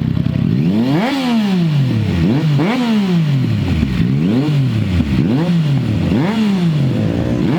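Motorcycle engine revved repeatedly while standing, about six throttle blips that each rise sharply in pitch and fall back over about a second.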